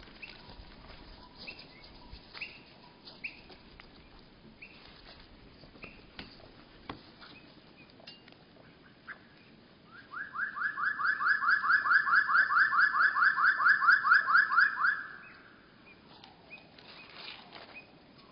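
A bird's trill played back at a third of its speed, so it comes out as a lower, drawn-out series of quick upward-sweeping notes, about five a second, for about five seconds midway. Scattered short chirps and light taps come before it.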